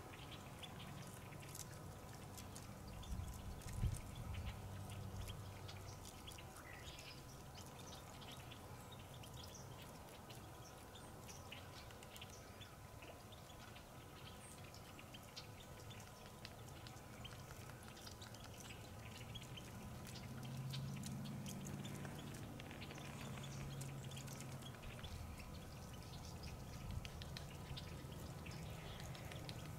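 Whitetail deer wading and feeding in shallow marsh water: faint splashing and dripping throughout. A thump about four seconds in, and a low hum that swells and fades about two-thirds of the way through.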